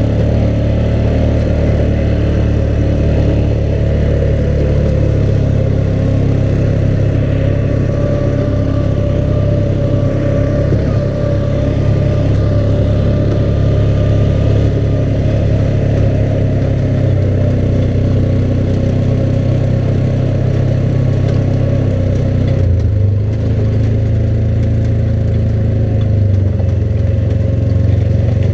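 ATV engine running steadily as the machine drives along a rough dirt trail.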